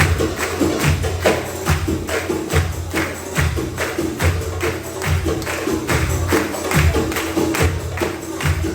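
Darbuka (goblet drum) solo: a fast, steady rhythm of deep, booming doum strokes at the drum's centre mixed with sharp, ringing tek and ka slaps at the rim.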